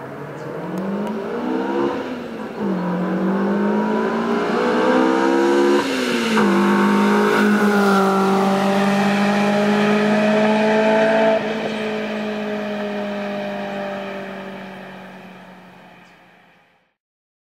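Toyota AE86 Corolla's swapped 4A-GE 20-valve Blacktop inline-four on individual throttle bodies, revving up through the gears with two upshifts in the first six seconds. It then holds a steady high note and fades away as the car drives off.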